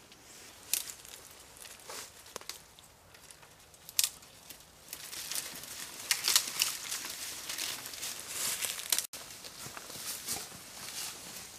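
Boots crunching through dry leaf litter and brushing through undergrowth, with crackling of twigs and leaves. Sparse at first, the crunching grows denser and louder about five seconds in.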